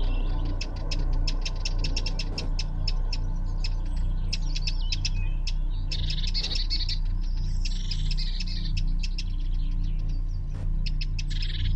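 Small songbirds calling at dusk: a fast run of sharp high ticks, then short high warbling phrases, over a steady low hum.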